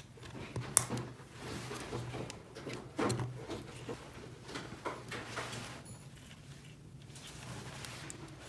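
Small objects being handled: scattered light clicks, taps and knocks, the sharpest about a second in and a busier cluster around three seconds in, over a faint steady hum.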